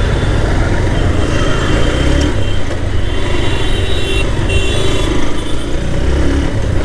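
Honda CB Hornet 160R motorcycle under way in traffic: its single-cylinder engine running with a steady low rumble of engine and wind.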